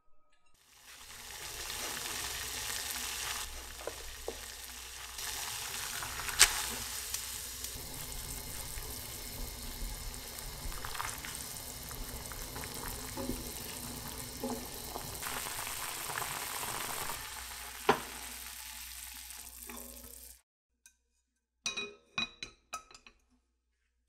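Udon noodles boiling in a pot of water, a steady bubbling hiss, with chopsticks stirring and now and then knocking against the pot. The boiling cuts off suddenly about twenty seconds in, followed by a few quick clinks.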